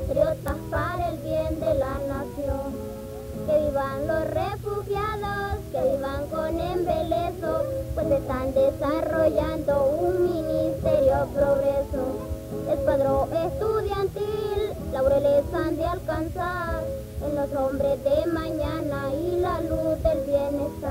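Music: a song with high voices singing a wavering melody over steady accompaniment.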